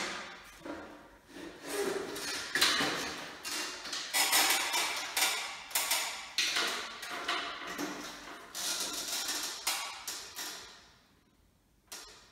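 A run of irregular knocks and scrapes, each starting sharply and dying away, then fading almost to quiet near the end.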